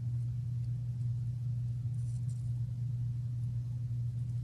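Steady low hum with no change in pitch or level, with a few faint light clicks about two seconds in.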